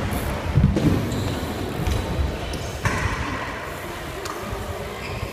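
BMX bike tyres rolling over plywood skatepark ramps, with a few thuds of wheels hitting the wood near the start.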